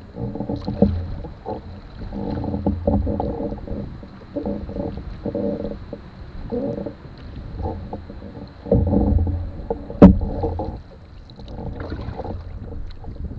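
Aluminum canoe under paddle: each stroke and slap of water sets the hull resonating in a hollow, ringing rumble that comes and goes every second or two. There is one sharp knock about ten seconds in.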